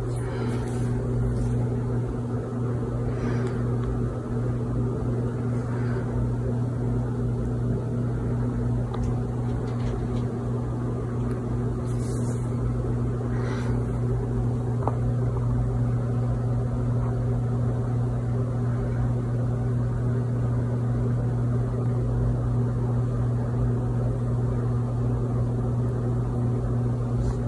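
A steady, unchanging low hum, with a fainter steady tone a little above it, from a running motor or appliance, and a few faint brief rustles.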